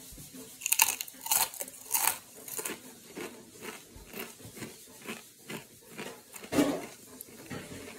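Crunching of a thick ridged potato chip (Ruffles Double Crunch jalapeño cheddar) being bitten and chewed. The loudest crunches come in the first two seconds, then steady chewing, with one more loud crunch near the end.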